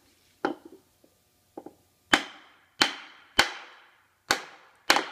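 Hammer blows on a wooden drift block, driving a steel cylinder sleeve down into the aluminium block of a Bentley 6.75-litre V8. A couple of light taps, then from about two seconds in five sharp strikes, roughly every half-second to second, each with a brief metallic ring.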